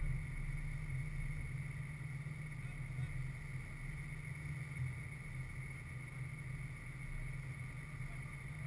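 Open-air ambience at a soccer field: a steady low rumble with faint distant voices of players.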